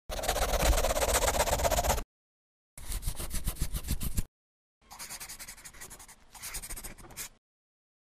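Pen scribbling on paper as a sound effect: three stretches of rapid scratching, each stopping abruptly, the last one quieter.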